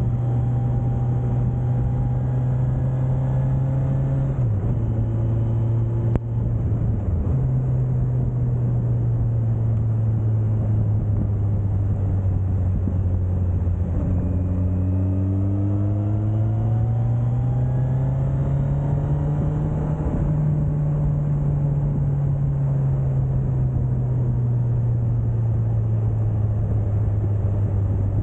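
Suzuki GSX1250FA's inline-four engine running at speed over steady wind and road noise. Its pitch dips briefly twice in the first seven seconds, rises steadily as the bike accelerates from about halfway, then eases off. A single click is heard about six seconds in.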